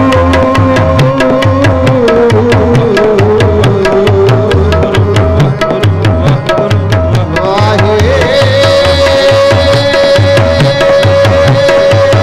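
Sikh kirtan: tabla playing a steady rhythm with deep bass strokes under a melody of long held notes that dips in pitch and climbs again about two-thirds of the way through.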